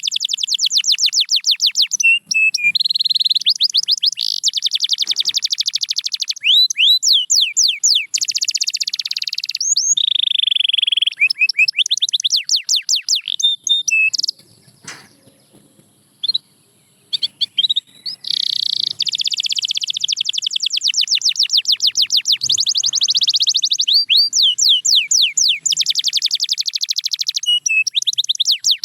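Domestic canary singing a long song of fast trills and rapidly repeated sweeping notes, breaking off for a few seconds about halfway through before carrying on.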